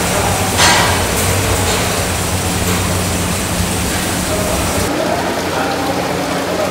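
Steady kitchen noise with a low hum; about five seconds in it changes to water running from a tap into a large steel cooking pot.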